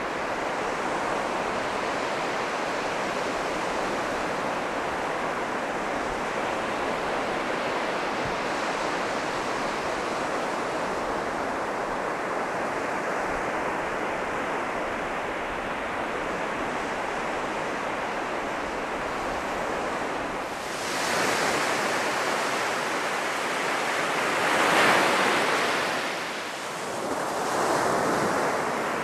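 Sea surf washing onto a sandy beach: a steady rush of waves, then about three louder breakers swelling and falling back in the last third.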